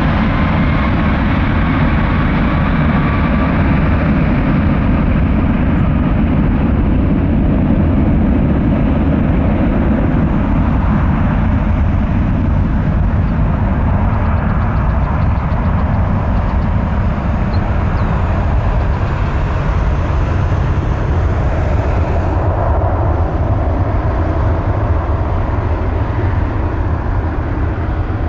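Airbus A330-243's Rolls-Royce Trent 700 turbofan engines at takeoff thrust during the takeoff roll: a loud, steady jet roar with a deep rumble and a thin whine that rises over the first few seconds. The roar eases slightly near the end as the airliner moves away.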